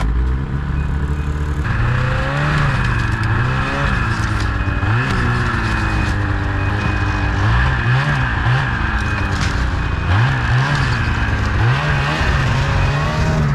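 Ski-Doo snowmobile engine running while the sled reverses down a loading ramp, its pitch rising and falling repeatedly as the throttle is worked. The sled's reverse warning beeper sounds a short high beep over and over throughout.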